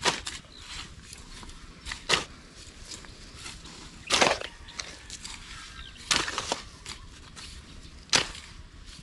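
Hoes chopping into loose heaped soil and scraping it along, five strokes about two seconds apart, the strokes a little after four and six seconds in drawn out into longer scrapes.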